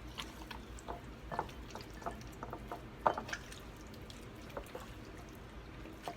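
Hands rubbing a wet seasoning paste into raw chicken: irregular soft squelches and wet clicks, the loudest about three seconds in.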